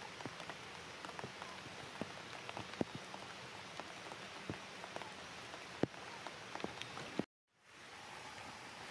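Steady rain falling, with scattered sharp ticks of single drops striking close by. About seven seconds in, the sound cuts out completely for a moment, then fades back in.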